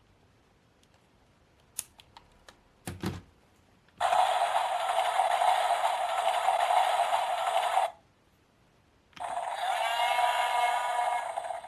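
Zeroliner Drill toy: a few light plastic clicks as it is handled, then two loud stretches of whirring sound effect with a pause between them, the first lasting about four seconds and the second about two and a half.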